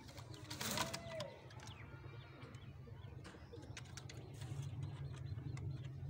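Dobaz pigeons cooing over a steady low background, with a short rustling burst about a second in, the loudest moment.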